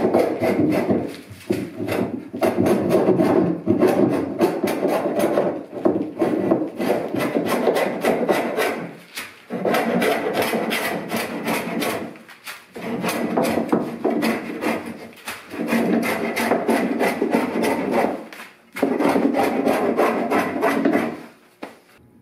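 Plywood canoe hull being abraded by hand, a small tool rubbed rapidly back and forth along the wooden edge with a rasping sound. The strokes come in runs of a few seconds with short pauses between, and stop shortly before the end.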